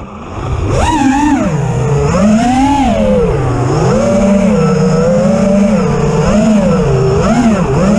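Brushless motors and propellers of an FPV freestyle quadcopter (Supafly Flipmode frame with T-Motor F60 Pro II 2500kv motors), heard from the quad's onboard camera with wind rush, whining up and down in pitch as the throttle changes. The throttle is cut right at the start, punched up again about a second in, then varies through steadier passes.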